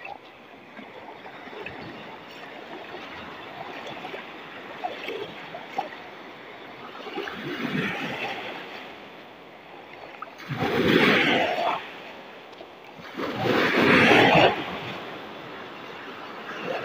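Big surf washing in and out around someone wading, with two loud rushes of breaking waves about ten and a half and thirteen seconds in: a rough sea stirred up by the northeast monsoon.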